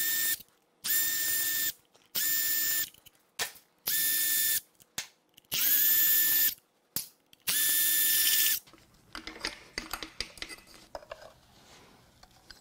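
Cordless electric ratchet whining in about seven short bursts as it runs out the water pump bolts on an engine block. After the last burst, near the end, there are only scattered faint clicks and knocks.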